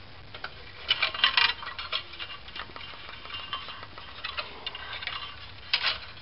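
Steel band saw blade clinking and scraping against the saw's wheels and housing as it is fed around them by hand, with a cluster of rattles about a second in and another short one near the end.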